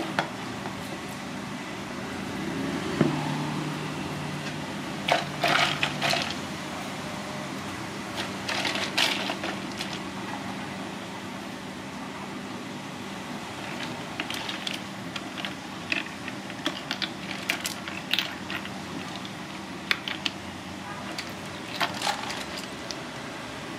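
Ice cubes and pieces of raw clam clinking and rattling against a plastic bowl and a stainless steel colander as they are handled and stirred with a spoon, in scattered clusters of sharp clicks. A steady low hum runs underneath.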